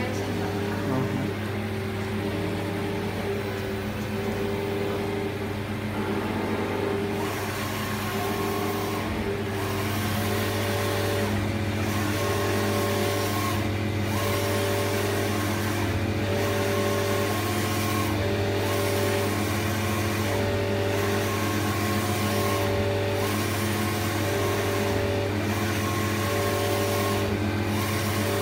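Digital belt textile printer running: a steady motor hum with the print-head carriage sweeping back and forth over the fabric. Its whine steps up and down in pitch with each pass, about every two seconds from a few seconds in.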